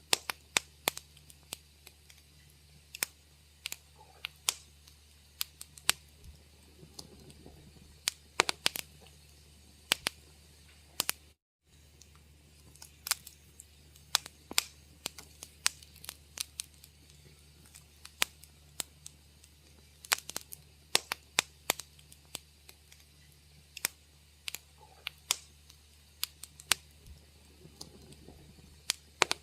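Wood fire crackling in a fireplace: irregular sharp pops and snaps over a faint low hum. The sound cuts out for a split second about eleven seconds in.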